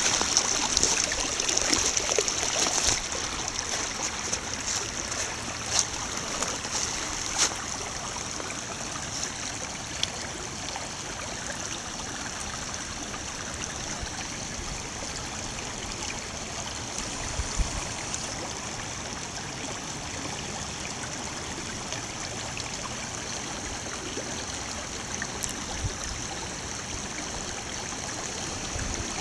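Small snow-melt brook babbling over gravel: a steady rush of running water, a little louder in the first few seconds, with a few faint clicks.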